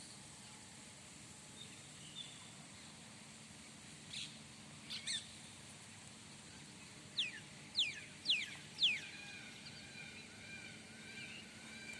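Wild birds calling over faint outdoor background: a few short high chirps, then, a little past halfway, four loud falling whistles about half a second apart, followed by a softer run of warbling notes.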